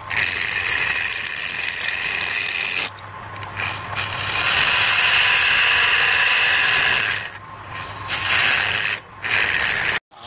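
Woodturning lathe with a hand-held chisel scraping the inside of a spinning wooden cylinder: a steady, loud cutting hiss over a low steady hum. It drops away briefly a few times and stops abruptly just before the end.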